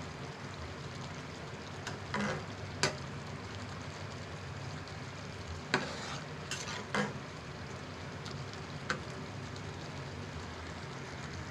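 Maggi noodles simmering in an open pan with a steady bubbling sizzle, while a utensil stirs them and knocks against the pan a handful of times.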